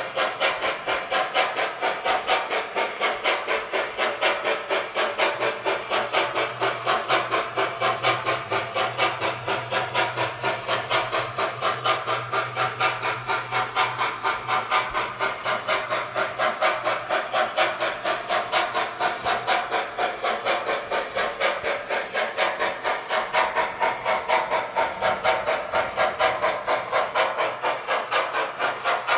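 DCC sound decoder in a Bachmann J11 model steam locomotive playing a steady run of steam exhaust chuffs, about four a second, through the model's small speaker.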